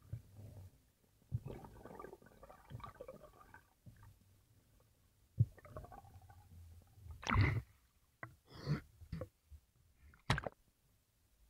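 Muffled underwater rumble with scattered bubbling bursts during a freediver's ascent, ending in a short, sharp splash about ten seconds in as the camera breaks the surface.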